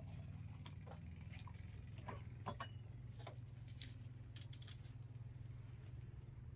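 Scattered light clicks and taps over a low, steady hum.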